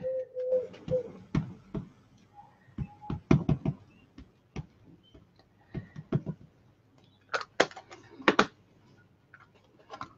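An Archival ink pad dabbed again and again onto a clear stamp in a plastic stamp-positioning tool: a string of light, irregular taps and clicks, bunched a few seconds in and again near the end.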